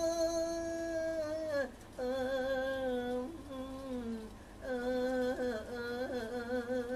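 A man singing long held notes without words. Each note wavers slowly and bends down at its end, about three in all, in the drawn-out ornamented style of Thai lae sermon-singing.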